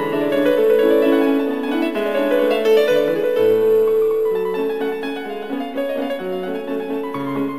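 Slow background music played on piano, with notes changing every second or so.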